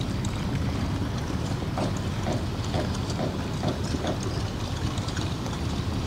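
A steel slipway cradle carrying a fishing boat rolls along its rails with a steady mechanical rumble. In the middle comes a run of six short squeaks, about two a second.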